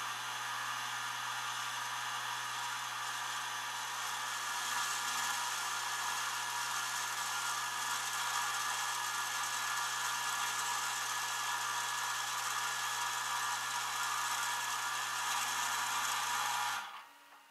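Rollback tow truck's hydraulic winch running steadily, paying out cable to let a car down the tilted bed: a constant mechanical whine over a low hum that cuts off suddenly near the end.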